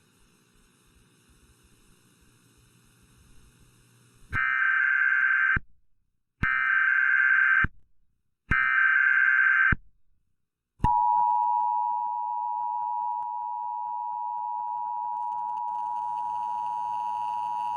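Emergency Alert System header and attention signal, the sequence that opens an EAS alert. The SAME digital header sounds as three buzzy data bursts about a second apart. About eleven seconds in, the two-tone attention signal starts and holds steady for about seven seconds.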